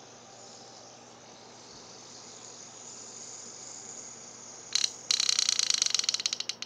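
Hand-held fidget spinner whirring as it spins between the fingers, a steady high-pitched hiss. A little over four and a half seconds in comes a sharp click, then a rapid rattle of clicks that thins out near the end.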